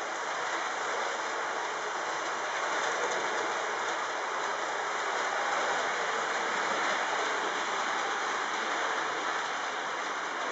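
Trix HO-scale GG1 model electric locomotive running on the layout with no sound decoder: a steady, even hiss of its motor and of the wheels rolling over the rails.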